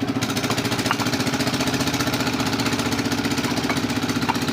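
An engine running steadily with an even, rapid throb, and a few faint clicks over it.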